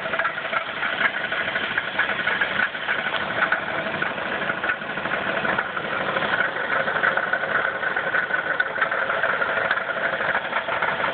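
Chrysler 3.3-litre V6 running steadily with a rapid, regular knock, which the owner takes for at least one bad rod bearing.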